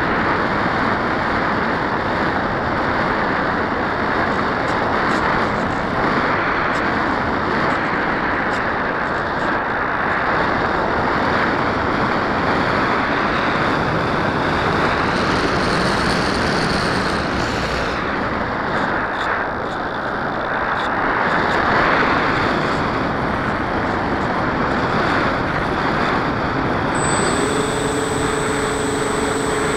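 Dynam Hawk Sky RC plane in flight, heard from its onboard camera: a steady rush of air and propeller noise. About 27 seconds in, a steady whine sets in as the Turnigy 2210 brushless motor and 6x4 prop come up on power.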